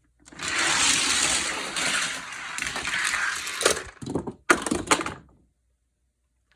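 Hot Wheels die-cast toy cars racing down a plastic track: a steady rushing roll for about three and a half seconds, then a few sharp clacks as the cars strike the track and each other, with one car wiping out sideways.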